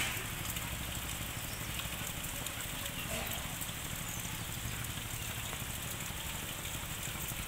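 Rain falling steadily, an even hiss with faint scattered ticks of drops, over a steady low rumble.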